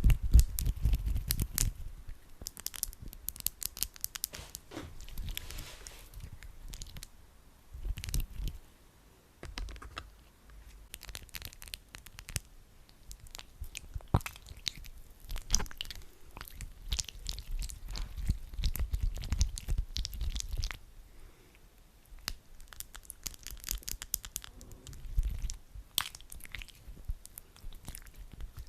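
Hands rubbing sticky aloe vera gel close to the microphone: irregular tacky clicks and crackles in bouts, with short lulls.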